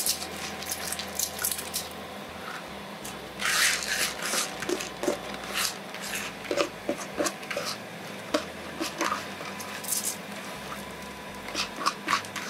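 Wet basmati rice scraped by hand out of a plastic bowl into a pot of water: soft wet squishing with irregular splashes, drips and small clicks, and a couple of louder splashy bursts.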